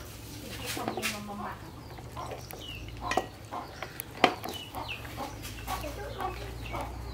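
Chickens clucking in short calls, with a few sharp knocks in between, the loudest about four seconds in.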